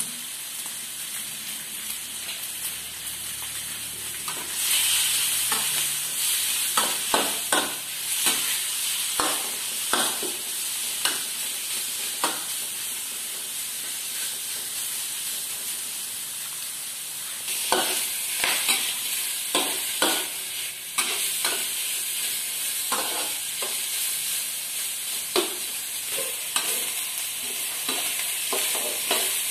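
Diced meat sizzling in hot oil in a wok over a gas flame while it is stirred, the spatula clicking and scraping against the pan. The sizzle swells twice, about five seconds in and again past the middle, as the meat is turned.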